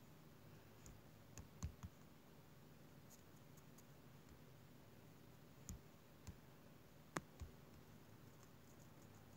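Faint, irregular light taps on a tablet touchscreen over near-silent room tone, about eight in all, the sharpest about seven seconds in.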